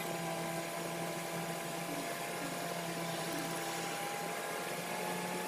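Steady hum with road noise inside a car's cabin while driving at an even speed.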